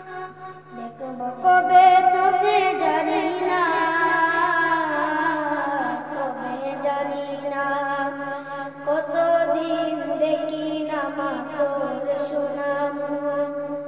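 A boy's voice singing a nasheed melody unaccompanied into a handheld microphone, with long held notes that slide and bend in pitch. A steady low hum runs underneath.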